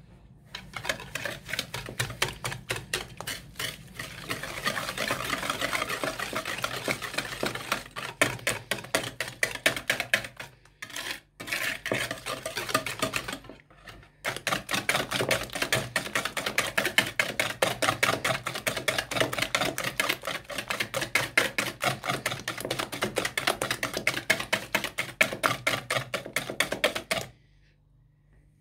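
Wire balloon whisk beating eggs and sugar in a white ceramic bowl: a quick, rhythmic clatter of the wires striking the bowl, broken by two short pauses partway through and stopping about a second before the end.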